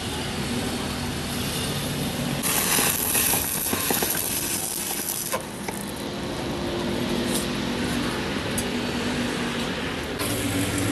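Workshop noise with a steady low hum. About two and a half seconds in, a loud hiss starts, lasts about three seconds and cuts off, followed by a few light metallic ticks.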